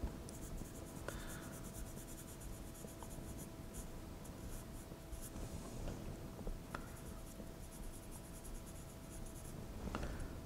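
Felt-tip marker scratching in quick strokes on the metal cylinder of a model steam engine, marking its top end, in several short bursts with a few light clicks of the part being handled.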